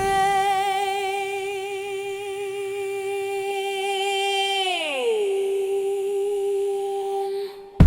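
Music: a single long, wordless held vocal note with a slight waver. About halfway through it slides down in pitch, holds the lower note and fades out. Loud music with deep bass cuts in right at the end.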